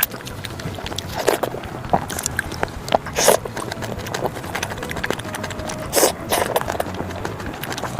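Close-miked eating sounds: a steady run of small wet chewing clicks, with three louder noisy bursts about a second, three seconds and six seconds in.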